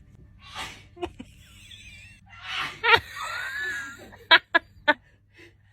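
A person sneezes about three seconds in: a rising in-breath ends in one sharp, loud burst, followed by a breathy exhale. Then come four quick, short bursts of laughter.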